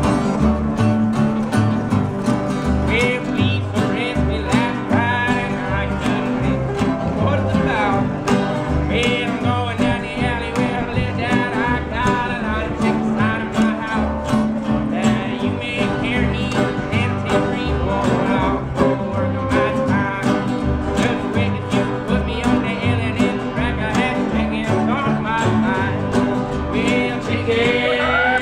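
Acoustic string band playing an old-time tune: fiddle, a resonator guitar played flat on the lap with a slide, two acoustic guitars, and a plucked upright bass keeping a steady beat.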